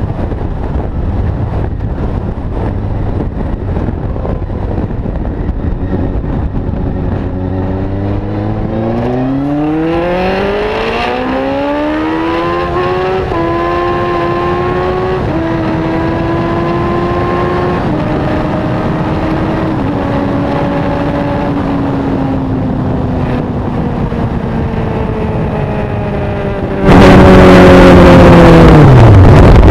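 Motorcycle engine pulling away and rising in pitch, then shifting up through several gears, its note stepping down at each shift before settling to a cruise. Near the end a sudden much louder rushing noise covers it, and the revs fall away sharply.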